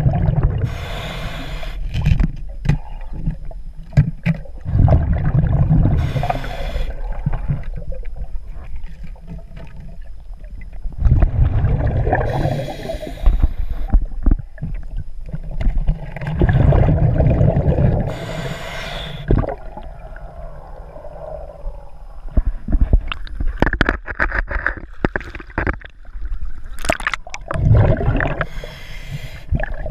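Scuba diver breathing through a regulator, recorded underwater: a rumble of exhaled bubbles alternating with a sharp hiss from the regulator, about one breath every five to six seconds, with small clicks and knocks in between.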